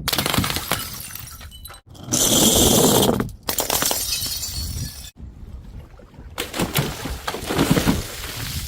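Glass bottles breaking and shattering, in a run of short clips spliced together, each starting afresh with a crash and the crunch and tinkle of broken glass.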